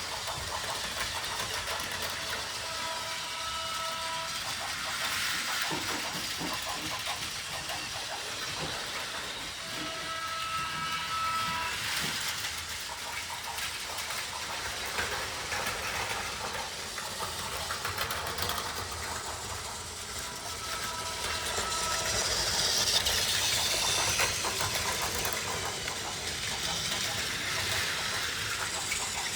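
Battery-powered Plarail toy trains running on plastic track: a steady whirring and rattling. Three short electronic tone sequences sound from the toy layout.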